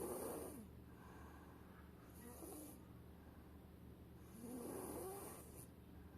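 A sleeping young child snoring softly. There are three snores about two seconds apart, and the last is the longest.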